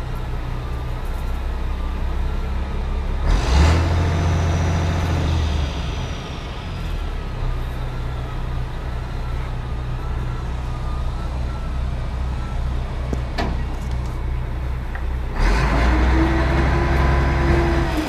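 Dump truck's diesel engine running steadily at idle, revved up twice: once about three seconds in for a couple of seconds, and again near the end. A faint wavering whine sounds over the first dozen seconds.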